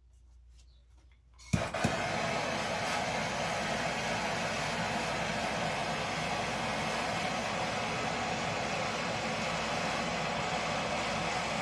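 Gas soldering torch lit with a sharp click about a second and a half in, then burning with a steady hiss as it heats copper pipe for soldering.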